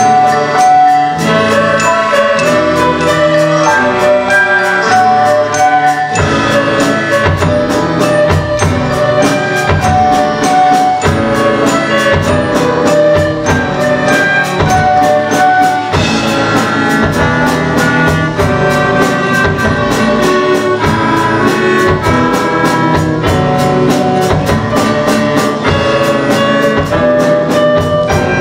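A youth ensemble playing live, with flutes on the melody over guitars, a drum kit and strings. The drums and bass come in fuller with a steady beat about six seconds in.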